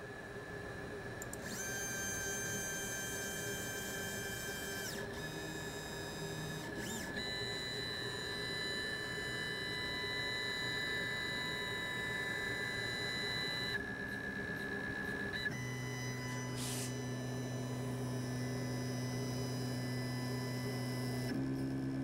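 CNC machine's stepper motors driving an axis toward its limit sensor: a steady electronic whine that shifts in pitch several times as the speed changes.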